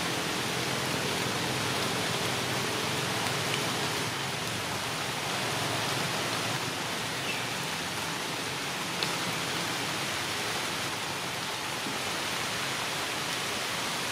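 Steady, even hiss, with a few faint short chirps and a single click about nine seconds in.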